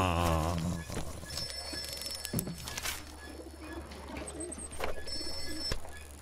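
A man's long drawn-out groaning voice sliding down in pitch, ending about a second in, followed by faint soft cooing sounds and a few light clicks.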